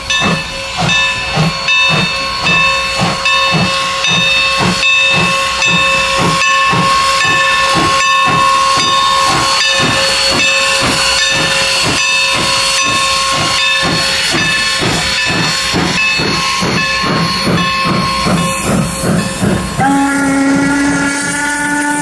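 Norfolk & Western 475, a 4-8-0 steam locomotive, passing under power: a steady rhythm of exhaust chuffs, about three a second, with a steady whistle tone over them that fades out a little past halfway. Near the end, as the coaches roll by, a second, lower-pitched steam whistle starts.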